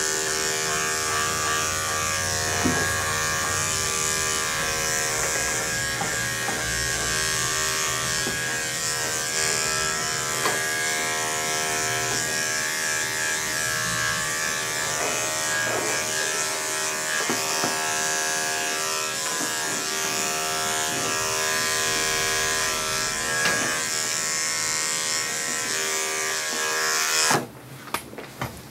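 Electric dog-grooming clippers running with a steady buzz as they clip a Scottish terrier's coat, with a few light clicks along the way. The clippers switch off abruptly near the end.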